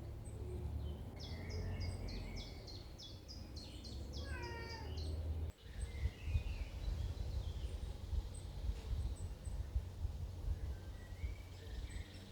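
Small birds singing, first a fast run of high repeated notes and then a falling trill, over a steady low rumble. The sound cuts out abruptly about halfway through and returns with fainter, scattered chirps.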